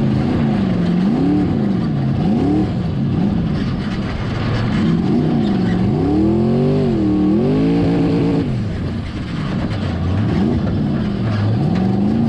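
Formula Offroad buggy's engine heard from the cockpit, revving up and down over and over about once a second, with one longer climb about six seconds in that drops off sharply.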